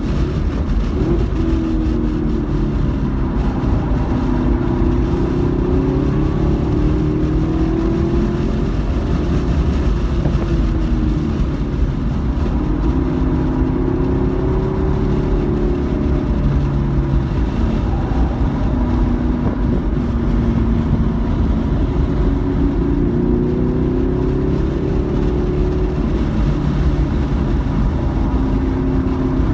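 Car engine heard from inside the cabin during a fast track lap, its revs repeatedly climbing and dropping through gear changes and braking, over steady road and wind noise.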